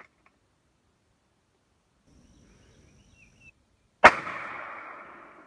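A single shot from a Remington 700 rifle chambered in .308, about four seconds in: one sharp crack whose echo fades over about a second and a half.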